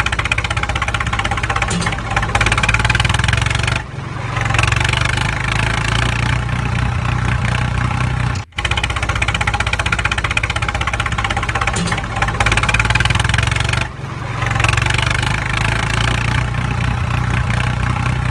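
Steady recorded tractor engine sound. The same stretch repeats after about ten seconds, with a brief dropout between the repeats.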